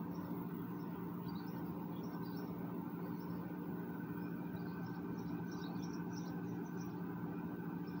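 Steady low mechanical hum, with faint, scattered high chirps over it.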